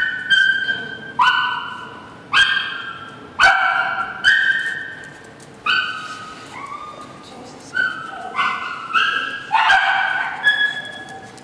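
Dogs barking repeatedly, about a dozen barks at varied pitches, each one ringing on in the echo of a hard-walled concrete kennel.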